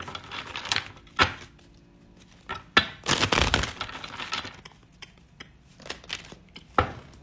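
Tarot cards being handled and shuffled: a few sharp snaps and clicks, with a denser rustle of cards about three seconds in lasting about half a second.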